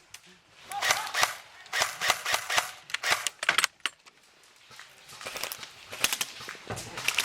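Airsoft rifle shots fired in quick bursts, about a second apart in the first half, then a short pause and another run of shots near the end.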